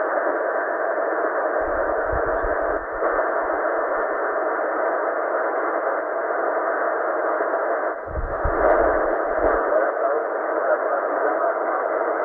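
Shortwave receiver in upper-sideband mode putting out steady band-limited static hiss on the 4629 kHz utility channel between voice transmissions, with no signal keyed. Two brief low rumbling bursts come through about two seconds in and again about eight seconds in.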